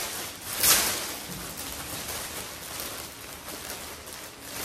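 Clear plastic packaging crinkling and rustling as it is handled and pulled open around artificial flower garlands, with a louder crackle just under a second in.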